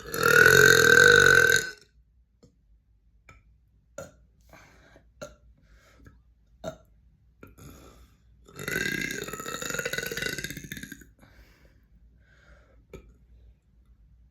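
A person burping: two long belches, the first loud and about two seconds long at the start, the second weaker and a little longer past the middle, with a few faint clicks in between.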